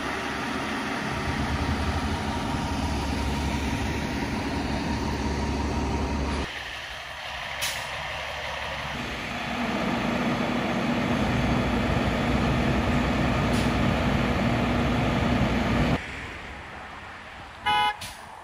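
Heavy truck diesel engines running: a fire ladder truck and a tow truck rumbling close by, the sound changing abruptly twice. Near the end comes one short vehicle horn toot.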